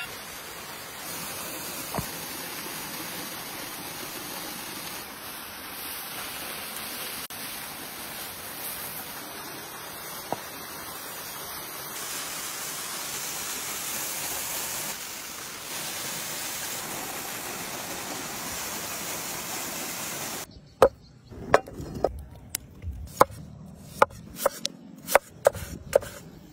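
A steady hiss for most of the stretch, then a quick series of about a dozen sharp knocks, roughly two a second, from a knife chopping food on a board.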